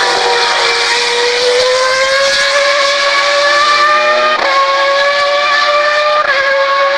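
Formula 1 car engine running at high revs, its pitch climbing steadily, with two brief breaks about four and a half and six seconds in.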